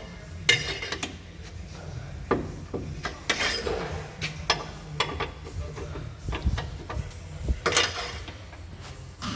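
Scattered, irregular metallic clicks and knocks of hand work on a car, over a steady low hum.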